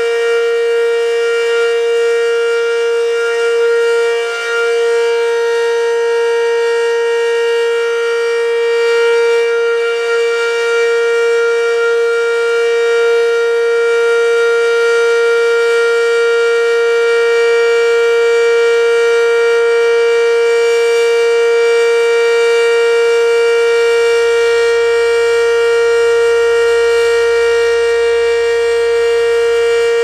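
Werden Electric B-115 omnidirectional warning siren sounding the steady Full Alert signal: one loud, unwavering held tone rich in overtones.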